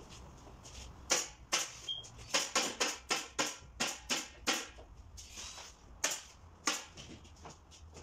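Pneumatic staple gun firing over a dozen sharp shots, two or three a second, driving staples through roof shingles into a wooden roof.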